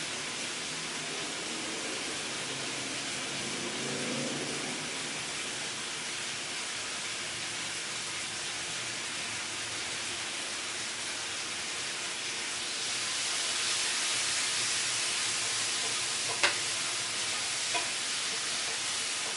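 Freshly built desktop PC's cooling fans (large 200 mm intake fans, radiator and graphics-card fans) running after power-on, a steady airy rush that grows louder about two-thirds of the way in as the fans speed up. A single sharp click comes near the end.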